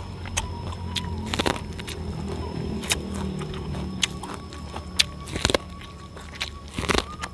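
Close-up chewing of raw purple corn kernels: several sharp crunches at irregular intervals over a steady low background hum.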